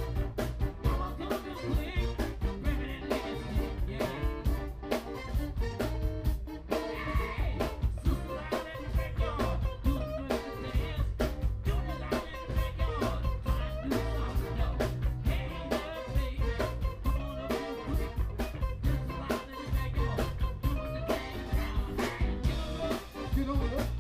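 Live blues band playing with electric guitar and drum kit keeping a steady beat, and a man singing into a microphone.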